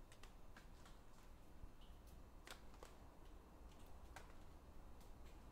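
Near silence: a faint low hum with sparse, irregular soft clicks.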